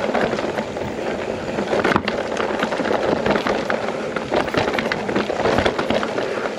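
Mountain bike rolling over a rough trail: tyre noise with a dense run of small rattles and knocks from the bike.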